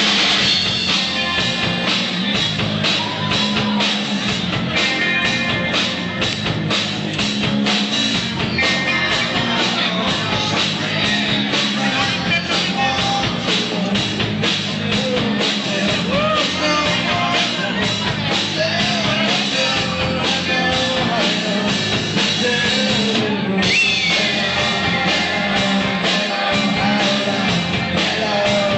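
Rock band playing live: a drum kit keeping a steady beat under a singer's voice and amplified instruments.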